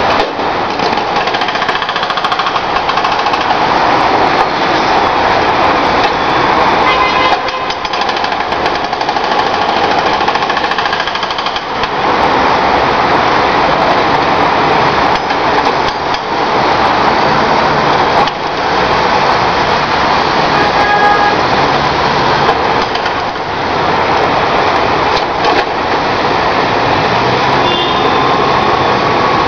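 Hydraulic breaker on a Komatsu backhoe loader's arm hammering asphalt: a loud, rapid, continuous pounding that breaks off briefly a few times.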